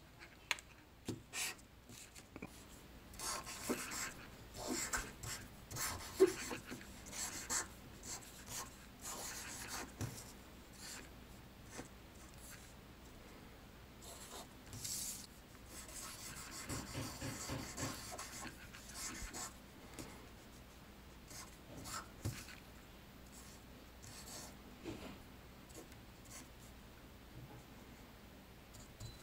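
Irregular scratchy strokes of something writing or rubbing on a surface, coming on and off.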